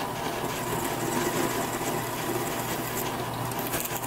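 Drill press running with a twist drill cutting into 1144 Stress-Proof steel: a steady motor hum under the sound of the bit cutting, which is cutting cleanly.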